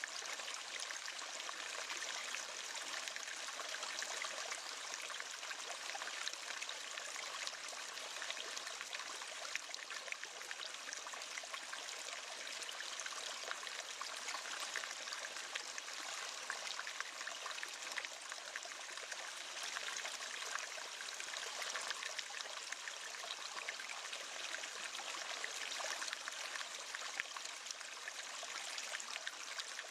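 River water flowing, a steady even rush with no pauses.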